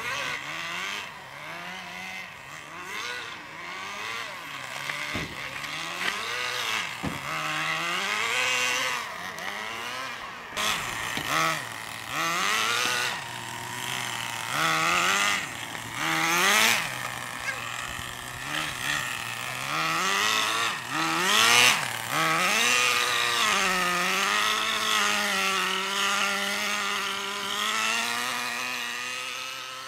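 Tamiya TG10 Mk1 radio-controlled car's small two-stroke nitro engine revving up and down again and again as the car is driven, then holding a steadier note for the last few seconds.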